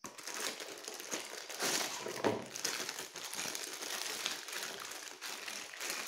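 Clear plastic packaging crinkling and a cardboard box rustling as a plastic washing machine tap is unpacked by hand, a steady run of crinkles.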